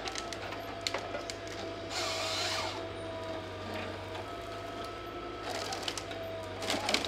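Malwa 560H forestry harvester running, its engine humming steadily under a hydraulic whine as the crane swings the Log Max 928 felling head. A burst of hiss comes about two seconds in, and a cluster of sharp cracks near the end as the head closes on a tree.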